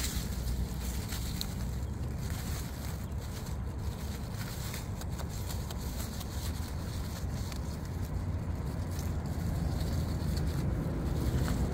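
A beaver chewing leaves and leafy stems up close, with scattered crunching clicks and leaf rustle, over a steady low rumble.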